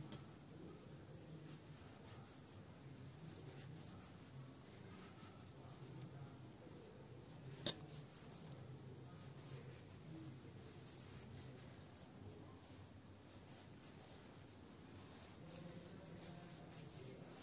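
Faint scratchy rubbing of yarn being worked with a crochet hook, with one sharp click a little before halfway.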